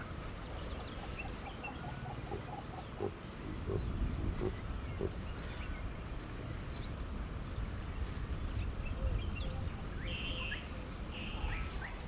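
Wild savanna ambience: a steady high-pitched insect drone, a quick run of pulses about a second in, and a few short bird chirps near the end, over a low rumble.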